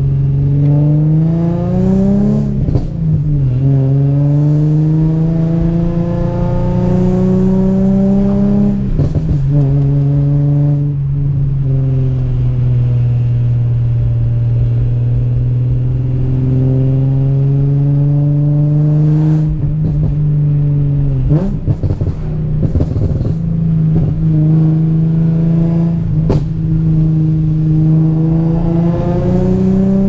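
Infiniti G37's 3.7-litre V6, heard from inside the cabin, pulling through the gears: the engine note climbs, drops back at each shift, and holds fairly steady while cruising. A few times, where the note breaks off on lifting, there are short sharp exhaust crackles.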